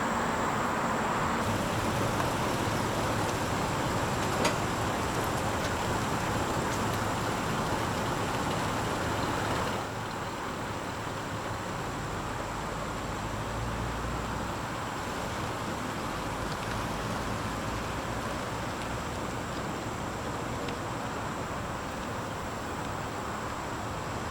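Steady motor-vehicle noise, a low engine hum under an even rush. It drops a little quieter about ten seconds in. A single sharp click comes about four and a half seconds in.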